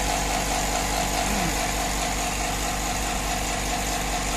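A 2.5 HP electric air compressor (NT2520, 25-litre tank) running steadily with an even mechanical hum, its pump filling the tank and building pressure toward the pressure switch's cut-out at about 7 kg.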